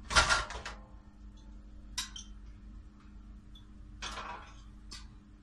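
Stainless steel pot lid handled over a cooking pot: a loud scraping clatter at the start, a sharp metal clink about two seconds in, then another clatter and clink about four to five seconds in. A low steady hum runs underneath.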